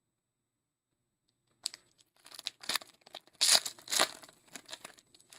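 Foil wrapper of a Donruss football hobby pack being torn open and crinkled: quiet for the first second and a half, then a sharp click and a string of crackling rips, loudest about three and a half to four seconds in.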